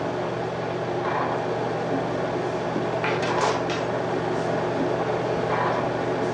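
Steady low electrical hum under an even hiss of running equipment, with a brief cluster of sharp clicks about three seconds in.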